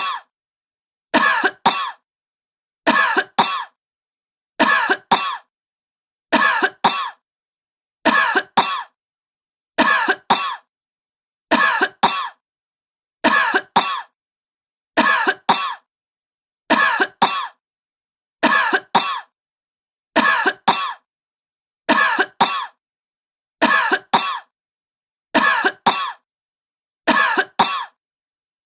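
A sick woman coughing in pairs, two short coughs close together, repeated at a steady rhythm about every second and three-quarters with silence between.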